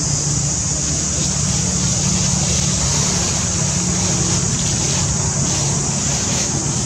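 A steady low motor hum, like an engine idling, under a constant high-pitched buzz, with faint rustling of dry leaves.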